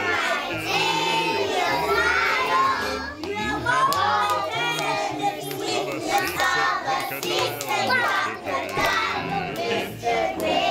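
A group of young children singing together along with music.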